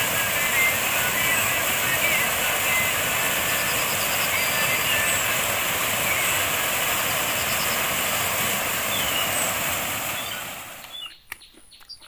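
Stream water rushing steadily down a stepped concrete cascade, with a few faint bird chirps above it. The rush cuts off about ten and a half seconds in, leaving a much quieter stretch with a few clicks.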